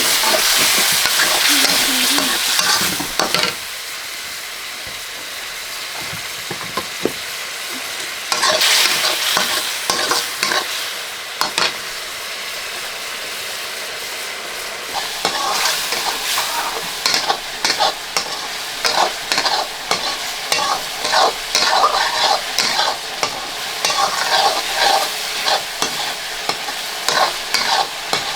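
Curry sizzling as it fries in a pan, with a spoon stirring and scraping against the pan. The sizzle is strongest near the start and again about a third of the way in, and the scraping strokes come quickly and repeatedly through the second half.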